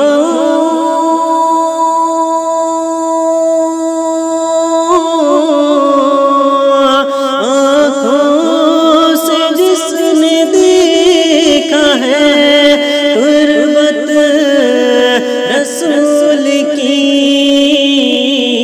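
Wordless vocal interlude in a naat: long held sung notes with melismatic runs over a steady vocal drone.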